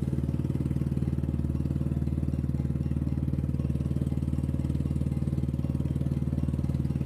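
Small boat engine running steadily at constant speed, with a fast, even beat.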